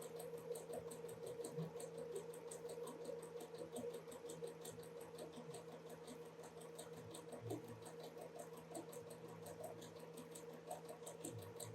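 Sewing machine stitching a seam: a steady motor hum with a fast, even ticking of the needle mechanism and small clicks of fabric being guided.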